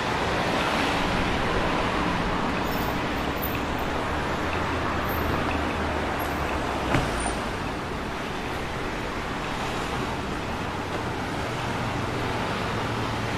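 Street traffic: motor vehicles passing with a steady low engine hum and tyre noise. There is one short sharp click about seven seconds in.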